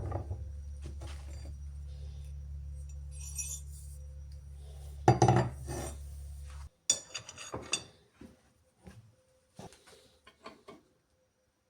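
Small metal parts clinking and knocking on a work surface, with a loud knock about five seconds in and a quick run of ringing clinks soon after. A steady low hum runs under the first half and cuts off suddenly.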